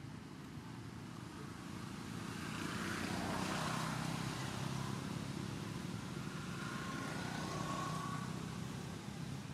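A motor vehicle's engine running, growing louder about two seconds in with a brief rush of noise, then holding a steady hum before easing near the end.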